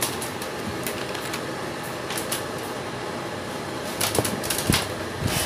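Light clicks and plastic rustling as nylon cable ties are handled and threaded around a fan motor's stator coil, with a small cluster of clicks about four seconds in, over a steady background hiss.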